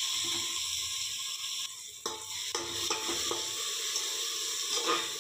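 Poi (Malabar spinach) leaves and spices frying in oil in a pressure cooker, with a steady sizzle as a slotted metal spatula stirs and scrapes them. The spatula gives a few sharp knocks against the pot about two seconds in and again later.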